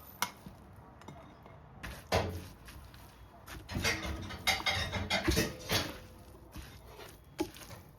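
Kitchen handling sounds: scattered knocks and clinks of utensils and dishes, with a busy run of clatter in the middle.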